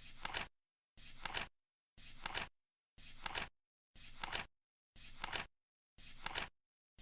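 Flip-clock sound effect: the seconds card flipping once a second, each flip a short rustling flap about half a second long that ends in a sharper clack.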